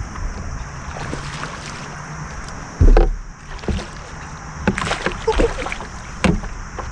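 Knocks, clicks and handling noise on a kayak while a hooked bass is brought in, with one loud low thump about three seconds in.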